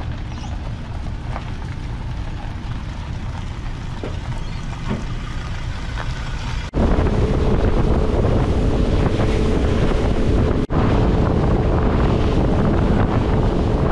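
Low wind rumble on the microphone with a few faint ticks, then, after a cut about seven seconds in, a boat underway: the outboard motor's steady drone under louder wind buffeting and water rushing past the hull.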